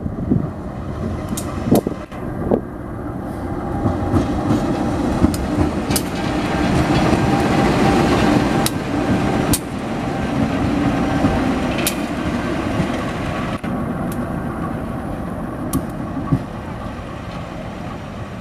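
Diesel locomotive hauling passenger coaches passes close by: a steady engine drone and wheels running on the rails with scattered sharp clicks. It grows louder to a peak around the middle as the locomotive goes past, then eases a little as the coaches roll by.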